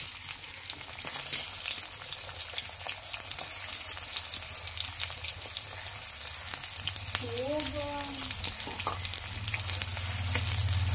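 Chopped onions frying in plenty of hot oil, a steady sizzle with constant crackling that picks up about a second in. A brief voice calls out once about halfway through.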